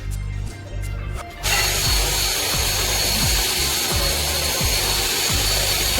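An electric power tool starts about a second and a half in and runs steadily with a high whine. Its whine drops away near the end as the motor winds down. Background music with a steady beat plays under it.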